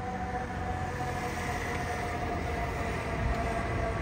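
A fire engine's emergency warning sounding one long, steady, horn-like tone with several overtones, sinking slightly in pitch near the end, over the low rumble of city traffic.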